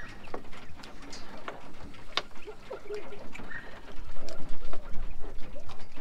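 Penned quail calling: soft clucks and short chirps one after another, with a few sharp clicks among them.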